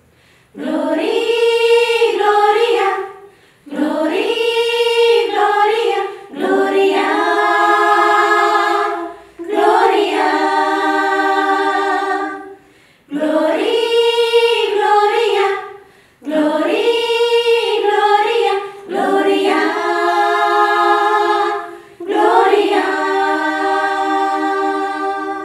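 Small women's choir singing a Christmas carol a cappella, in phrases of two to three seconds with a brief breath between each. Each phrase starts with an upward slide and settles on held notes, and the last one fades out near the end.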